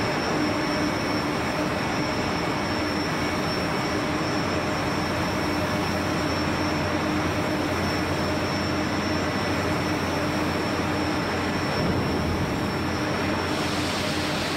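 Steady machinery drone: an even rushing noise with a constant high whine and a lower hum.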